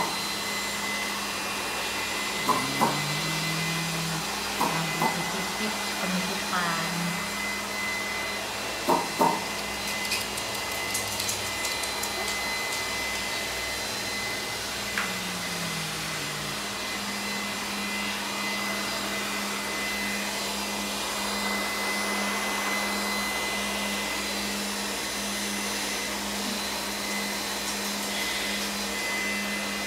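Steady hum and airy whir of an electric motor blowing air, with a few short knocks in the first ten seconds.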